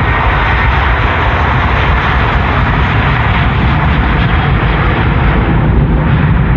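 Jet airliner engines running loud and steady, a low rumble with a broad rush of noise over it, as the plane passes.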